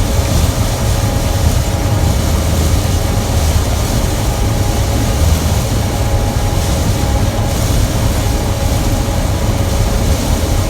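Gleaner M2 combine running while harvesting soybeans, heard from inside the cab as a steady low drone with a faint steady whine above it.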